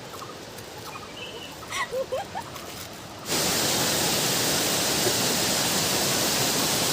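Waterfall's steady rushing roar, which starts abruptly about halfway through. Before it, quieter open-air ambience with a few short calls.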